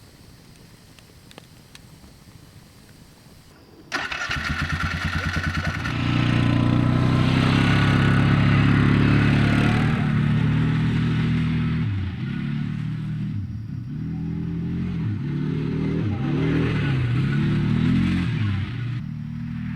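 A motor vehicle engine starts suddenly about four seconds in, with a quick run of firing pulses, then runs and revs up and down in pitch in the second half.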